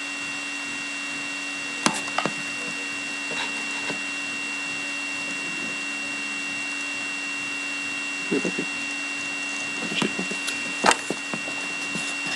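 Trading cards being handled: a few short light clicks and crackles over a steady electrical hum with a faint high whine.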